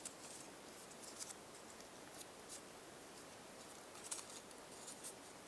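Faint handling of a paper strip: soft rustles and clicks as it is folded into small right triangles, with a few snips of scissors.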